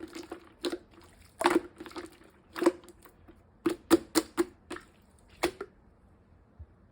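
Hand-kneaded black slime marbled with gold pearl, giving a dozen or so irregular wet clicks and pops as it is squeezed and pressed.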